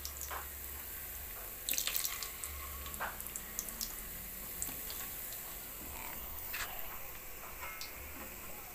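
Squid balls deep-frying in hot oil in a wok: a steady sizzle with scattered crackles and pops.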